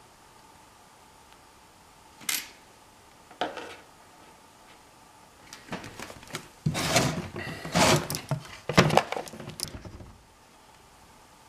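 A plastic tub with a snap-on lid is handled on top of a plastic kitchen trash can: two sharp knocks about two and three seconds in, then several seconds of clattering and scraping as the tub is gripped and moved on the lid.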